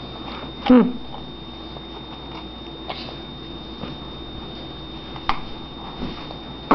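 A baby's short vocal sound, falling in pitch, about a second in, then a few faint clicks, and another vocal sound beginning right at the end.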